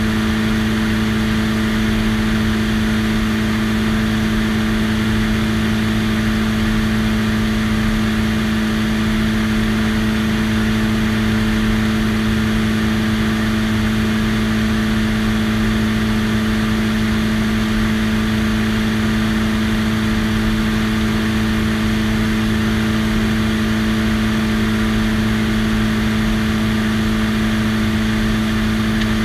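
Light biplane's piston engine and propeller running steadily in flight, a constant drone with a strong steady tone and no change in power, over a rush of airflow noise across the wing-mounted microphone.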